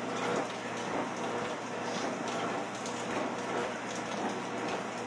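Steady hiss of rain falling, mixed with the running of a treadmill under a person walking on it.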